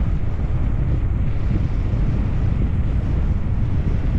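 Wind buffeting a GoPro's microphone as a bicycle coasts fast downhill: a steady, loud low rumble.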